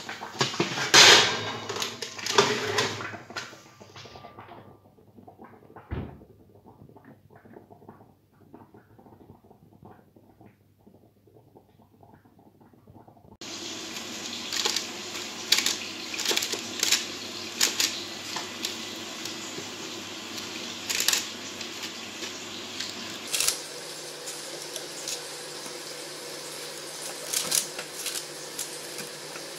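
Metal baking tray clattering against the oven as it is handled, then, after a quiet stretch, tongs clicking and scraping on the tray of roasted chicken over a steady hiss.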